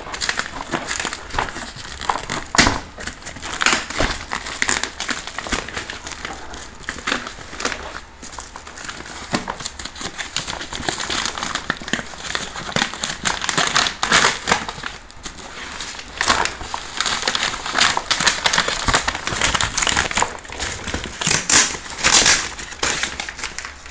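Brown kraft packing paper and loose plastic wrapping crinkling and crackling as a boxed item is handled and pulled from its shipping carton, a dense unbroken run of sharp crackles.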